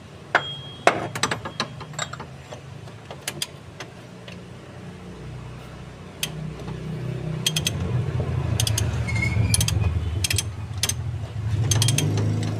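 Metal hand tools clinking and clicking, with ratchet-like clicks, during work on a car's oil filter, over a low steady hum that grows louder about six seconds in.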